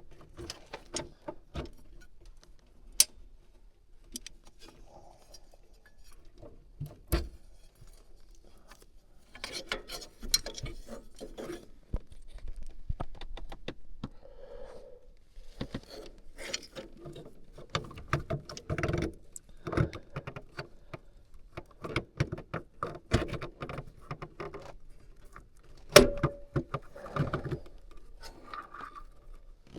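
Handling noises as an electrical box cover is fitted back on over spliced wires: scattered clicks and small knocks with bouts of rustling, the sharpest click about 26 seconds in.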